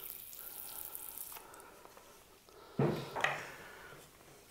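Water spraying from a hose nozzle onto a bonsai root ball, a steady hiss that stops a little over a second in. About three seconds in, a short clunk as a small ceramic bonsai pot is set down and handled.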